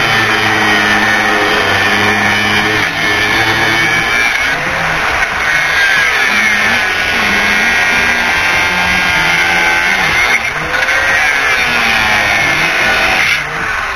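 Corded angle grinder cutting through old wooden step boards, its motor pitch rising and falling as it bogs under load. It drops off near the end.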